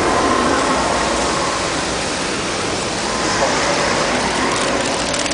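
Steady, even rushing noise, like running water or heavy traffic, with no clear speech.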